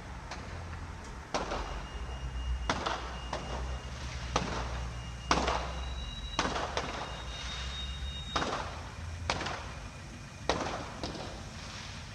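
Fireworks going off in a rapid series, about one sharp bang a second, each trailing off in a short echo, over a steady low rumble.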